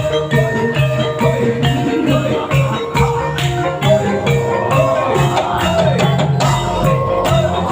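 Kuda lumping accompaniment music: Javanese gamelan-style percussion keeps a steady beat of about two sharp strikes a second under pitched metallophone notes and a repeating low note.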